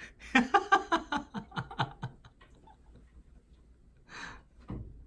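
A person laughing: a quick run of chuckles for about two seconds, followed about four seconds in by a short breathy hiss.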